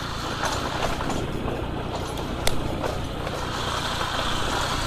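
Motorcycle in motion: its engine runs steadily as a low drone under a haze of road and wind noise, with one sharp click about halfway through.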